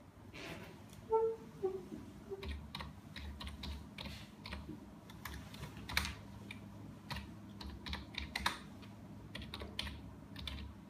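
Typing on a computer keyboard: a quick, irregular run of key clicks. A brief pitched sound about a second in comes just before the clicks begin.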